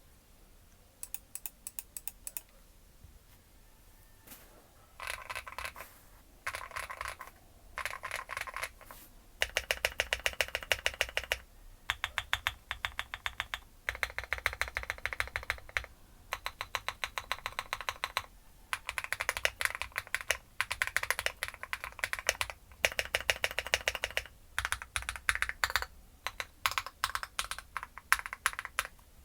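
Finalkey V65 R2 mechanical keyboard being typed on: KTT Kang White linear switches in a polycarbonate plate with Akko ASA keycaps, a tape-modded, foam-removed build. A few scattered keystrokes come first, then fast typing in bursts of a second or two with short pauses between.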